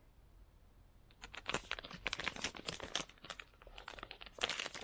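Plastic snack wrapper crinkling as it is handled, a rapid irregular crackle that starts about a second in.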